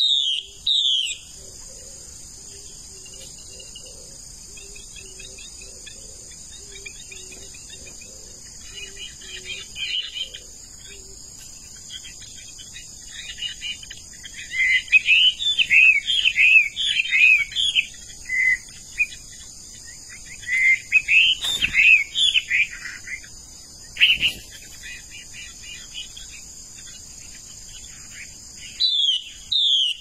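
Birds chirping in bursts of quick falling notes, busiest around the middle and again about two-thirds of the way through, over a steady high insect buzz. A soft low note repeats steadily through the first third.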